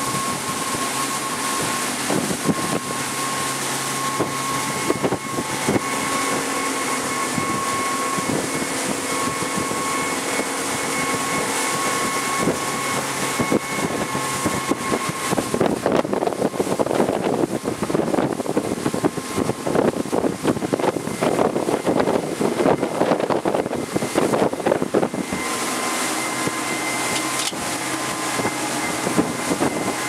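Bonadeo 368 center console boat running under way: a steady engine note with a high tone over rushing wind and water. From about halfway through, for some ten seconds, wind buffeting the microphone grows louder and masks the engine, which then comes back through.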